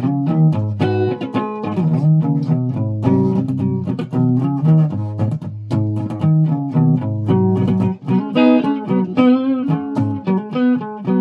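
A stringed instrument played as a quick run of separate plucked notes over low bass notes, turning to wavering, trembling notes about eight seconds in.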